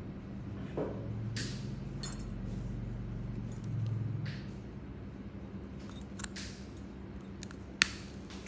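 Metal podiatry instruments, tweezers and steel nail nippers, clicking faintly while being handled at a toenail, with one sharp metallic click near the end. A low steady hum runs underneath.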